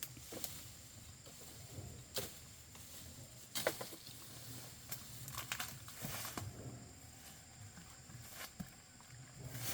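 Scattered rustles and sharp snaps of plants and dry leaves being handled or stepped on, irregular and a few per second at most, the loudest about three and a half seconds in.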